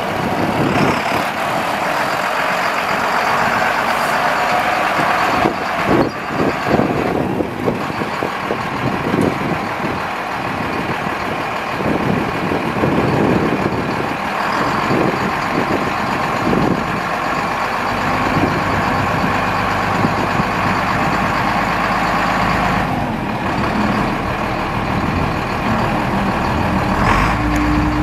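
International DT360 inline-six diesel engine of a 1989 International 1754 truck running steadily as the truck moves about.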